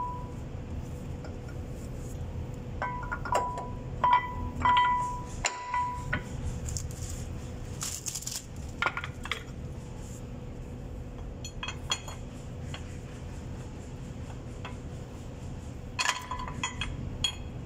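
Steel brake pads and caliper parts clinking with short ringing tones as they are knocked into a truck's disc brake caliper during fitting: a cluster of clinks a few seconds in and another near the end, over a faint steady hum.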